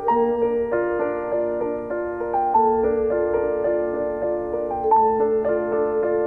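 Slow background music on a keyboard: sustained, held chords that change about every second.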